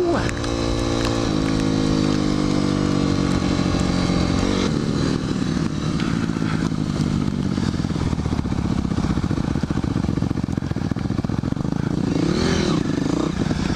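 Dirt bike engine running under way, its revs easing down over the first few seconds. It then runs at low revs with quick, even firing pulses, with a brief rise and fall in revs near the end.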